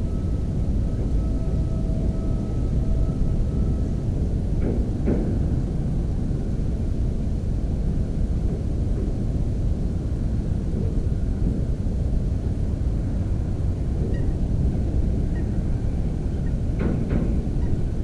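A steady low rumble, with a few faint knocks about five seconds in and again near the end.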